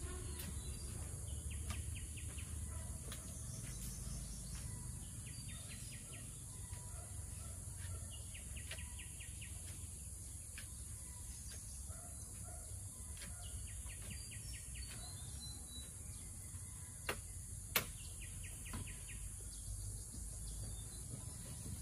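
Rural outdoor ambience: a steady high hiss with short, rapid trills repeating every second or two, and two sharp knocks under a second apart late on.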